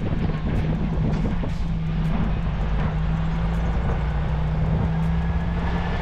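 Lorry's diesel engine and road noise heard from inside the cab while cruising: a steady, even low drone.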